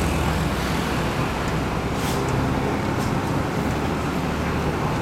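Bus in motion, heard from inside: a steady low engine drone mixed with road noise, with a couple of faint clicks or rattles around two and three seconds in.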